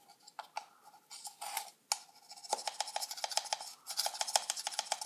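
A measuring spoon scraping and clicking against the inside and rim of a metal baking powder tin as a teaspoon is scooped and levelled. A few separate clicks come first, then a fast run of scraping clicks through the second half.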